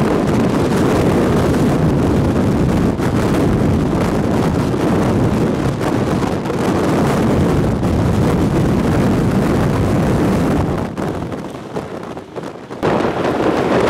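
Strong wind buffeting the microphone, a dense, steady roar that drops off about eleven seconds in and comes back suddenly near the end.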